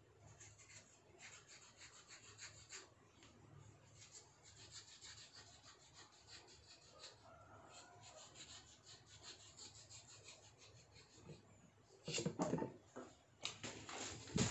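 Kitchen knife peeling the skin off a vegetable in quick, faint scraping strokes. Near the end come several louder knocks as the knife cuts down onto a wooden cutting board.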